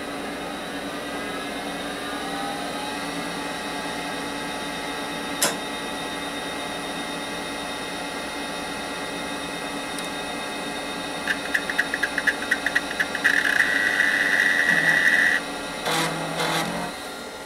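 SyQuest SQ555 44 MB removable-cartridge drive spinning up, a whine rising in pitch over the first few seconds above the steady hum of the PC running. A single click comes about five seconds in. Past the middle a rapid run of ticks turns into a harsh buzz for about two seconds, then stops.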